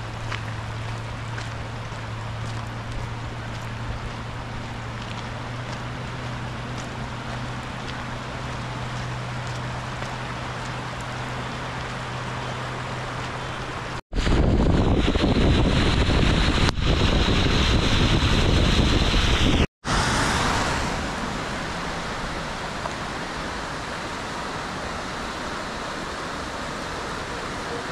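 Steady outdoor wet-weather noise of wind and rain with a low steady hum. About halfway, a much louder steady rush cuts in for about six seconds and cuts off suddenly. Then comes the steady rush of a swollen, flooded creek.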